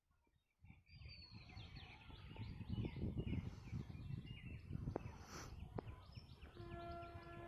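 Birds chirping over and over amid a faint low rumble. Near the end a horn sounds once, a single steady note held for about a second and a half.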